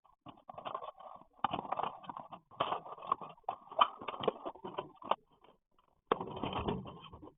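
Irregular knocks, clicks and scraping in two stretches, with a short gap about five and a half seconds in.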